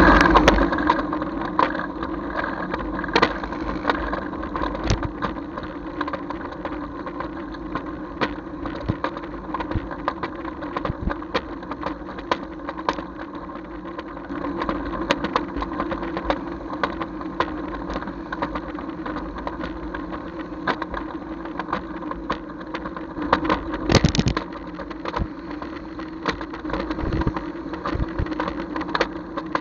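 Engine of the vehicle carrying the camera running steadily while driving along a road, with frequent short clicks and rattles over it and a brief louder burst about 24 seconds in.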